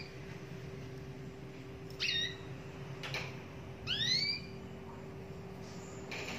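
Domestic canary calling in short bursts rather than full song: a quick chirp about two seconds in and a rising whistled call about four seconds in, over a steady low hum.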